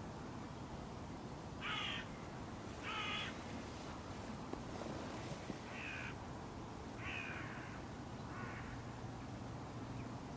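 Hooded crows cawing: five short caws spaced a second or more apart, the first two the loudest.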